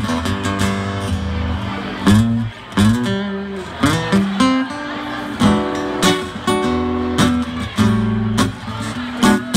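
Amplified acoustic guitar played solo, an instrumental breakdown: sharp strummed chords alternating with picked runs, several notes bent or slid upward.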